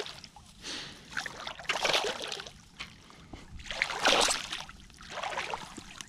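A hooked pike thrashing in shallow water as it is grabbed by hand, giving about four bursts of splashing roughly a second apart.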